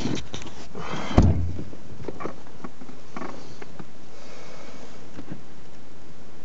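A car door shuts with a heavy thump about a second in. After it comes a steady hiss with a few faint clicks and rustles from inside the car.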